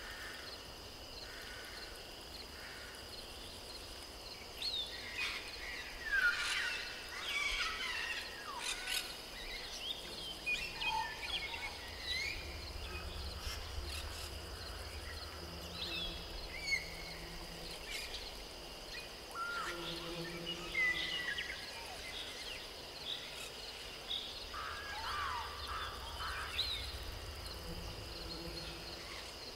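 Outdoor nature ambience: birds chirping in short, scattered calls over a steady high-pitched insect drone.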